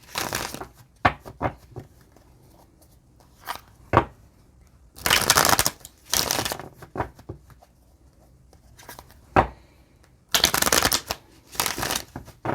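A tarot deck being shuffled by hand in several short bursts of about a second, with light taps and clicks of the cards between.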